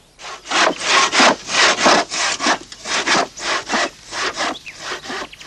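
Two-man crosscut saw sawing through wood: a steady back-and-forth rasp of about three strokes a second.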